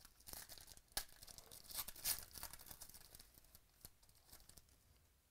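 Foil wrapper of a 2017 Select football trading-card pack being torn and peeled open by hand, a run of crackly crinkling and tearing. The sharpest tears come about one and two seconds in, then it fades to a few light crinkles.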